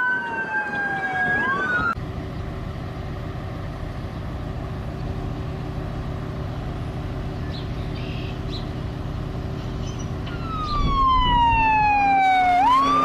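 Emergency vehicle siren wailing, sliding up and down in pitch, at the start. This gives way about two seconds in to a steady low hum with a rushing noise. The siren wails again near the end, sweeping down and then back up.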